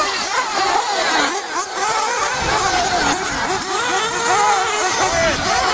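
Engines of several 1/8-scale off-road RC buggies racing at once, their high whines rising and falling as they accelerate and lift off.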